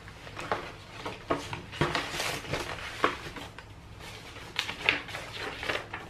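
Paper rustling with scattered light clicks and taps as a card is picked up and handled.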